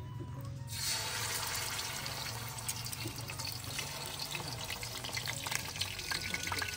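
Fish pieces sizzling in hot oil in a frying pan: the hiss starts suddenly about a second in as the first piece goes in, with spattering crackles that grow denser toward the end.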